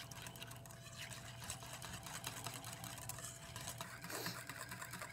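Wire whisk beating mayonnaise and soy sauce in a stainless steel bowl: a fast, steady run of light clicks as the wires strike the metal.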